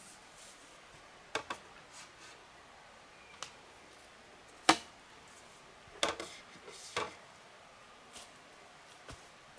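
Irregular sharp knocks and snaps from hands-on camp work, about nine at uneven gaps, the loudest just before the middle, over a faint steady background.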